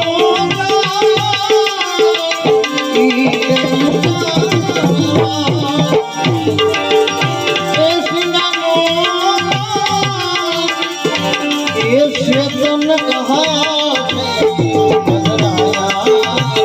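Instrumental interlude of a Gujarati bhajan: tabla playing a steady rhythm under a sustained melodic instrument line, amplified through a sound system.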